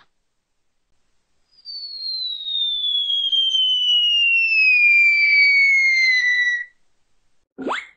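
Cartoon falling whistle: a single whistling tone that glides slowly and steadily down in pitch for about five seconds, then cuts off.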